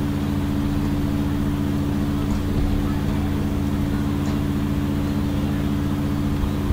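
Steady low electrical or machine hum made of several constant low tones, with two faint clicks partway through.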